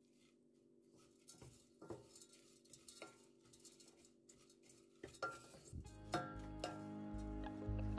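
Wooden spoon stirring dried anchovies in a stainless steel saucepan, with scattered light taps and scrapes against the pot. Background music comes in about six seconds in.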